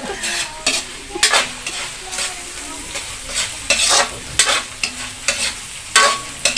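Sliced footlong hotdog frying and sizzling in a steel wok, with a spatula scraping and stirring it in repeated irregular strokes over the steady hiss.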